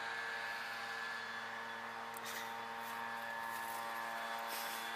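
Steady mechanical hum with an even pitch and a hiss beneath it, with two brief rustles about two and a half seconds in and near the end.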